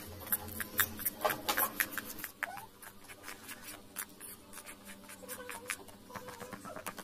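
Metal spoon stirring thick gram-flour batter in a steel bowl: quick clicks and scrapes of the spoon against the bowl. They are busiest in the first two seconds, then lighter.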